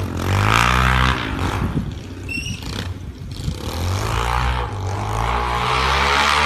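Suzuki DR-Z110 pit bike's small single-cylinder four-stroke engine revving while being ridden through deep snow. The revs sag with some clatter about two seconds in, then climb again from about four seconds in and hold high.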